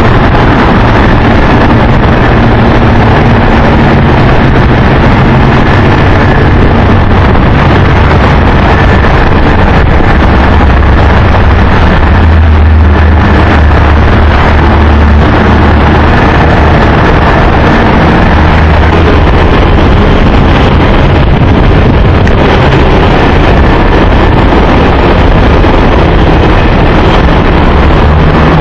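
Boeing 747-200F freighter's four jet engines running steadily, with a low hum underneath and a faint high whine. Wind buffets the microphone.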